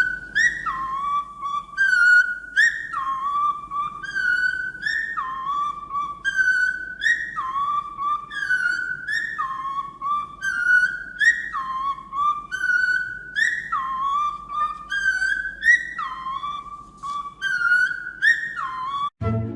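A parrot whistling the same short phrase over and over, a higher note that drops to a lower held note, about once a second.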